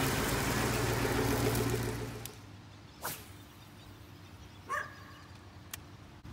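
Vehicle engine idling steadily, heard from low beside the parked vehicle, cutting off abruptly about two seconds in. After that it is much quieter, with a brief click near three seconds and a short high-pitched call near five seconds.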